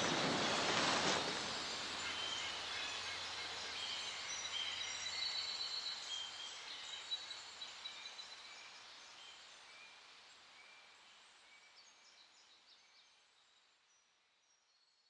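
Birds chirping over a steady hiss of outdoor ambience, the whole bed fading out gradually to silence near the end.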